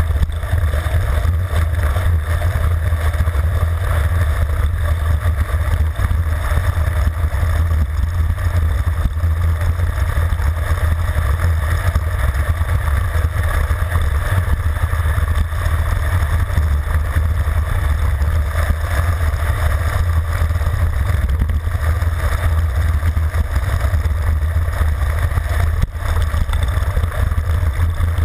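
Steady wind noise buffeting the microphone of a camera on a road bike descending at high speed, heaviest as a deep rumble with a rushing hiss above it.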